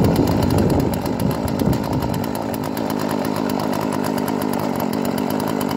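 Chainsaw engine running steadily, with a fine, even pulsing. It comes with some irregular low knocking in the first couple of seconds as the cut ice block is levered in its hole.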